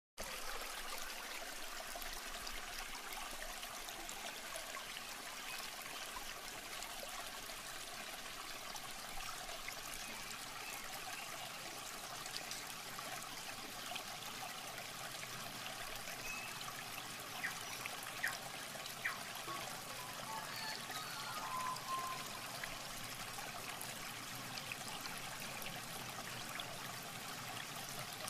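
Shallow muddy water trickling and sloshing steadily as hands grope through mud under the water, with a few small splashes about two-thirds of the way in.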